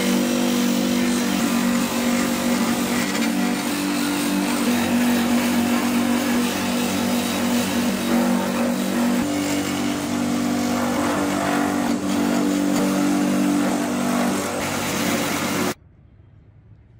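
Wood lathe running with a chisel cutting rings into a spinning wooden shaft: a steady motor hum under the rough hiss of the cut. It cuts off suddenly near the end.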